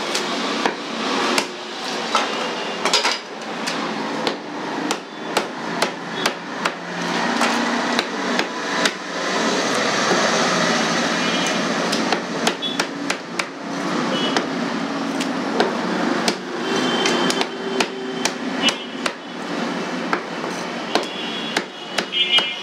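A large fish-cutting knife chopping a carp fillet on a wooden log block: many sharp, irregular knocks of the blade striking the wood, over steady background noise.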